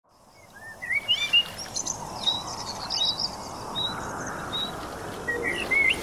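Small birds chirping, a string of short rising and falling notes, over a steady soft background hiss of outdoor ambience. It fades in from silence over the first second.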